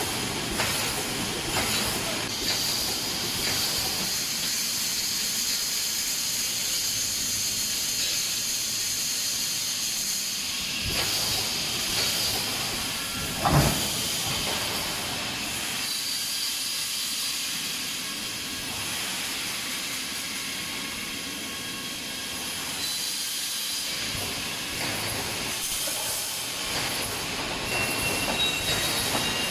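Automatic wire mesh welding machine running: a steady hiss of air with mechanical clatter, and one sharp bang about fourteen seconds in.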